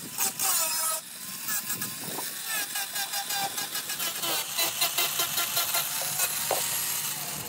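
Handheld angle grinder with an abrasive disc grinding the cut edge of a helmet shell: the motor's whine under a steady high hiss of the disc on the shell.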